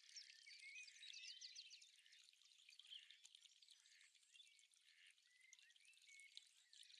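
Faint chorus of small songbirds: overlapping trills and chirps from several birds, busiest in the first two seconds and thinning to scattered calls after.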